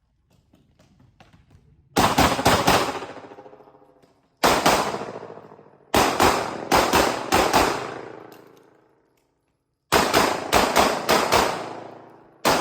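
Pistol fired in quick strings of two to six shots, in bursts about two seconds apart, each string ringing off in a long echo.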